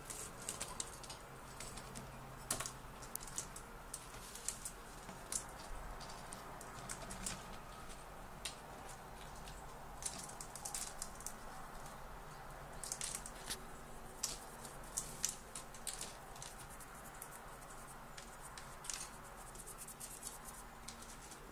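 Siberian chipmunk moving about its wire cage on a wooden perch: quick, irregular light clicks and scratches that come in small clusters.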